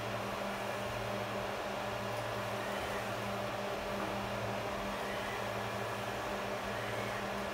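Loud humming devices in a soldering room: a steady low hum under an even fan-like hiss.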